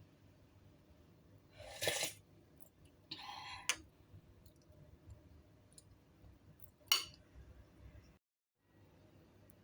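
Scattered handling noises over a low hum: a short scrape about two seconds in, a longer scrape around three seconds that ends in a sharp click, and another sharp click near seven seconds. The sound cuts out for a moment near the end.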